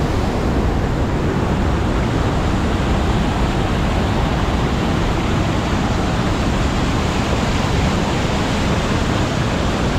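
Waterfall and creek rushing in a steady, unbroken wash of falling water, the creek running high after a night of rain.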